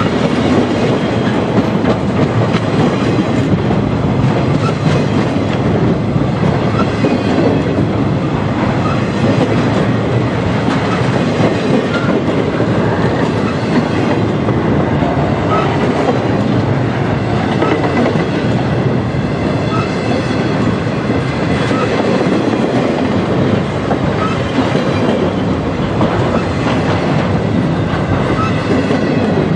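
Empty intermodal flatcars of a freight train rolling past: a loud, steady rumble and clatter of steel wheels on the rails.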